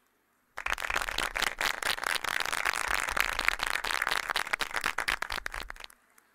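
Audience applauding as a plaque is presented; the clapping starts about half a second in and cuts off abruptly near the end.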